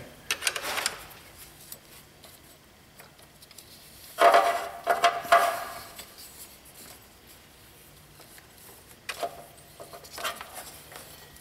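Hands working the serpentine belt off the engine's pulleys, with scattered rubbing, scraping and light metallic clatter of tools, in three short spells. The loudest spell comes about four to five seconds in.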